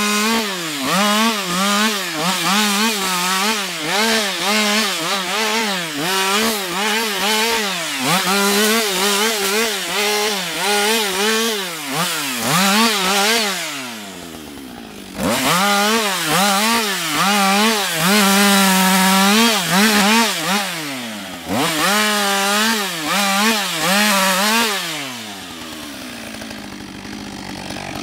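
Husqvarna 562 XP two-stroke chainsaw limbing a felled conifer: the engine revs up and drops back over and over in quick succession as branch after branch is cut. It falls to idle briefly about halfway, and again for a few seconds near the end before revving up once more.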